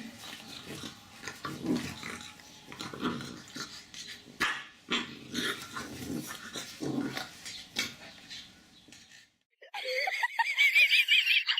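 A dog making short, low vocal sounds in irregular bursts, with a few clicks. About ten seconds in, after a brief gap, a different high, wavering, rapidly pulsing sound starts.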